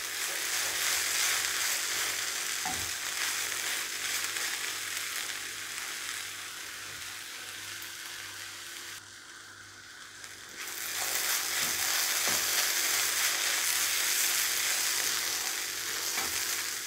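Drumstick-leaf and dal thoran sizzling in a nonstick pan over a high flame while a spatula stirs and turns it, with a few light taps of the spatula. The sizzle drops away briefly about two-thirds of the way through, then comes back.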